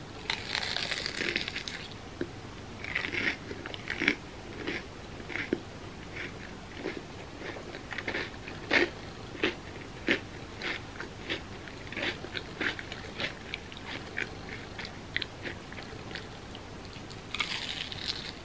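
A close-miked bite into crispy fried mochi bread gives a dense crunch, then chewing with many short, sharp crunches, one or two a second. Another crunchy bite comes near the end.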